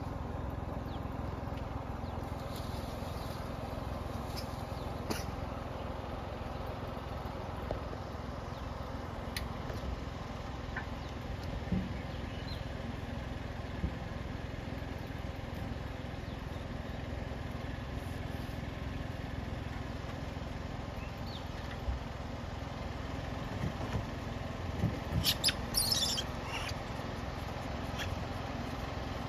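Vehicle engine idling steadily, with a few scattered clicks and a short flurry of scratching and clicking a little before the end.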